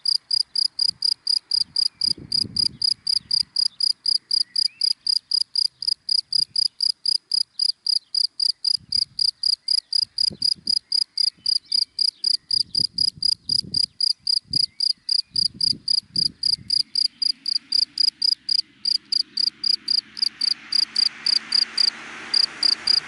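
A cricket chirping in a steady, even rhythm, about three and a half high chirps a second. Near the end a broad rushing noise swells up beneath it, as a passing car approaches.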